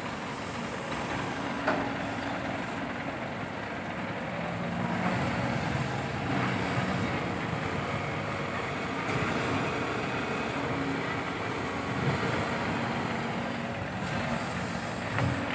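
Diesel engines running as a Sumitomo SH130 hydraulic excavator works beside a dump truck, the engine note shifting in pitch now and then, with a few sharp knocks.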